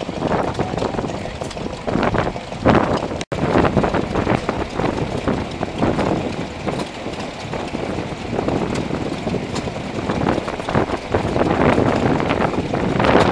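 Vintage single-cylinder stationary engines running with a steady beat of knocks, each driving a water pump. First a green vertical engine belt-drives a plunger pump; after a brief break in the sound about three seconds in, a Lister engine runs its pump. Wind noise on the microphone.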